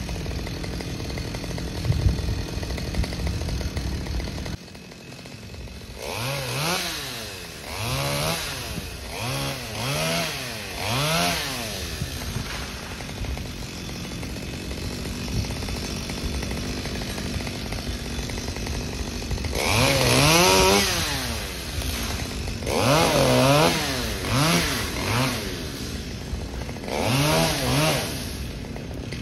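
Two-stroke chainsaw working up in a tree, its engine revved up and down in quick blips about once a second. A longer, louder run at high revs comes a little past the middle of the stretch.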